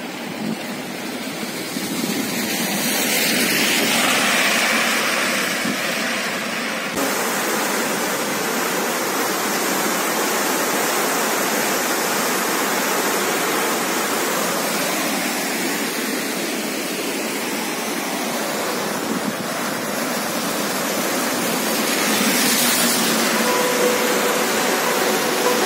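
Steady rushing roar of the swollen Siang River in monsoon flood, its turbulent brown water churning past below. The sound shifts abruptly about seven seconds in.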